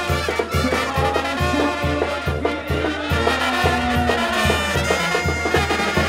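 Mexican banda brass band playing: trumpets and trombones over a steady pulsing bass, about two beats a second.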